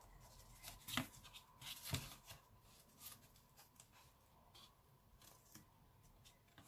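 Faint rustling and soft clicks of cardstock being handled, the two loudest clicks about one and two seconds in.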